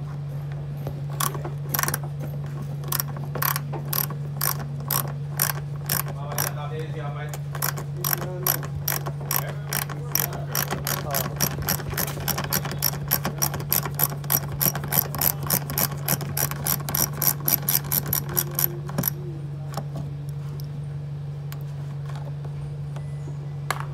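Hand ratchet wrench clicking as a bumper bolt is backed out, the clicks quickening from about two a second to about four a second, then stopping about 19 seconds in. A steady low hum runs underneath.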